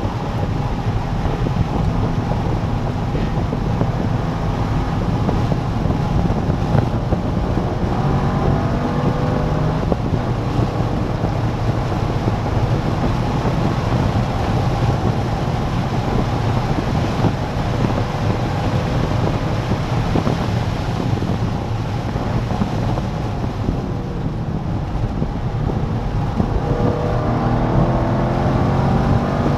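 C5 Corvette Z06's LS6 V8 engine running hard at track speed, its pitch climbing under acceleration about a third of the way in and again near the end, with wind rush.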